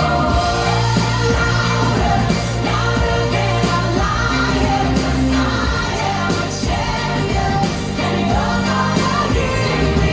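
A pop song with a sung vocal over a steady bass and beat, loud and continuous.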